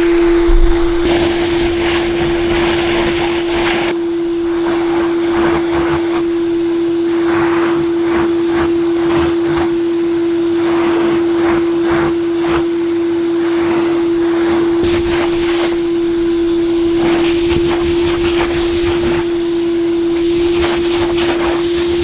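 Vacuum cleaner running with a steady high motor whine, its airflow rushing in uneven surges as the nozzle works over a clogged, filthy engine air filter.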